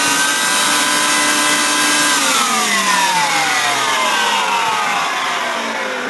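Hoover SteamVac carpet cleaner's motor running steadily with its rotating brushes spinning. About two seconds in it cuts out and winds down, its whine falling steadily in pitch.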